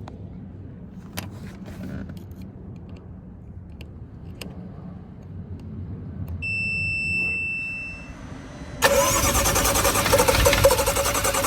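A steady electronic beep lasting under two seconds, then, near the end, the BMW M135i's starter motor suddenly begins cranking its turbocharged straight-six with a loud, steady whine and no sign of catching: the car's crank-no-start fault.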